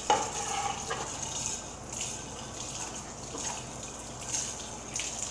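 Kitchen faucet running as a plate is washed at the sink, with a few light knocks.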